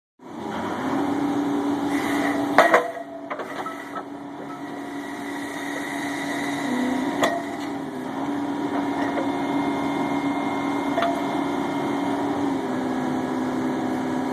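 Rock hammer driving steel pipe piling: a steady mechanical hum from the running machine, with two loud clanks, one about two and a half seconds in and one about seven seconds in.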